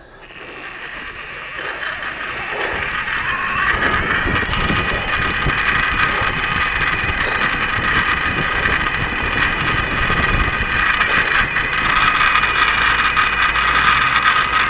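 Electric bike running, its motor whine rising over the first few seconds as it picks up speed, then holding steady, with wind rumble on the microphone underneath.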